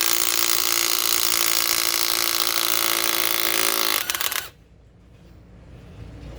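Hercules 12-volt 3/8-inch cordless impact wrench running steadily, hammering on a tight nut for about four seconds. It falters and stops a little past halfway.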